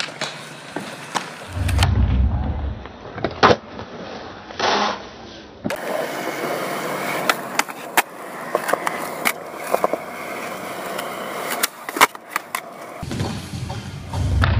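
Skateboard wheels rolling on concrete, broken by many sharp clacks of the board popping, hitting and landing. The sound changes abruptly a few times as one short clip cuts to the next.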